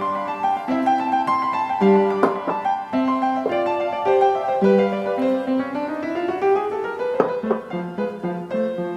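Solo piano background music in a light classical style, a sonatina rondo, with a quick rising run of notes about six seconds in.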